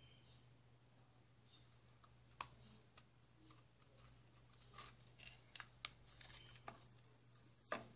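Faint scattered clicks and taps of fingers pressing EVA foam cut-outs onto a plastic bottle and handling it, over a low steady hum. The sharpest clicks come about two and a half seconds in and just before the end.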